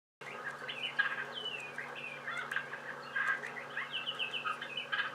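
Songbirds chirping busily, many short quick calls overlapping, with a faint steady low hum underneath.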